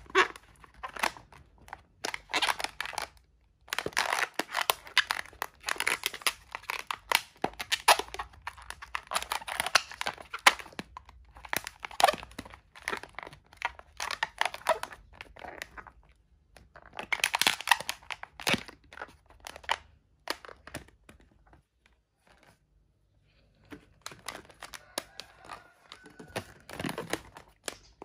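Latex modelling balloons being twisted and squeezed by hand: rubbery rubbing and crackling in bursts. There is a quiet pause of a few seconds before the end.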